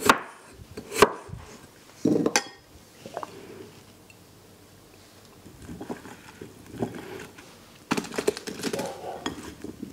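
A kitchen knife chops through raw potato onto a wooden cutting board with two sharp knocks. Near the end comes a quick clatter of potato cubes tumbling into a metal baking tray.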